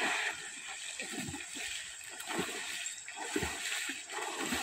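River water splashing and churning as men swim beside a swimming bull and throw water at it, in irregular surges.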